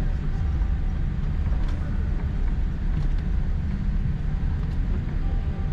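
Cabin noise of a Boeing 787-8 Dreamliner taxiing, heard from inside the cabin: a steady low rumble, with a few faint clicks about two, three and four and a half seconds in.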